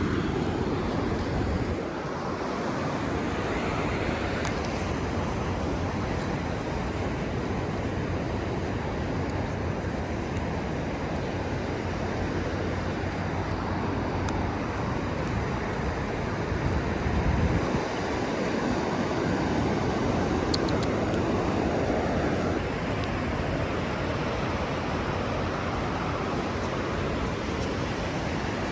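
Steady outdoor wash of wind and ocean surf, with wind buffeting the microphone in low gusts, the strongest about two-thirds of the way in.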